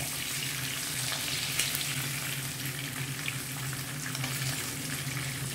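Masala-coated fish frying in shallow coconut oil, sizzling and crackling steadily, as a spatula moves the pieces in the non-stick pan. A steady low hum runs underneath.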